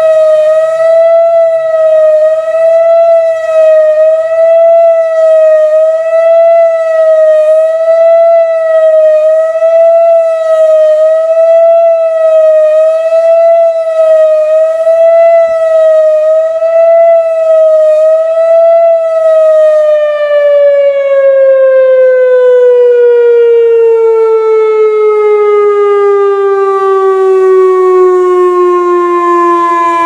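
Whelen WPS 2740 electronic outdoor warning siren sounding its attack (fast wail) test signal, a loud tone wavering quickly up and down. About nineteen seconds in the signal ends and the tone slides slowly down in pitch, imitating the wind-down of a mechanical siren.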